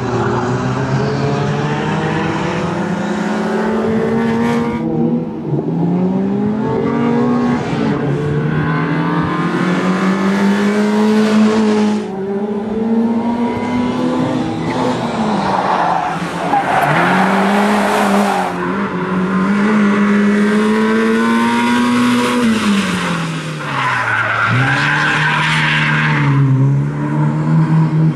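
BMW E30 318is's 1.8-litre four-cylinder engine revving hard up and down through gear changes and braking on a tight course, with tyres squealing in bursts, loudest about halfway through and near the end.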